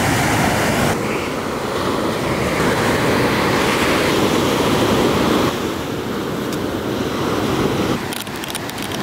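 Ocean surf breaking and washing up a sand beach: a steady rushing wash. A short run of clicks sounds near the end.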